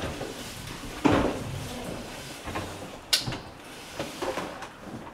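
Knocks, bumps and clicks of firefighters handling a door and their gear at a doorway, with a heavy thump about a second in and a sharp click about three seconds in.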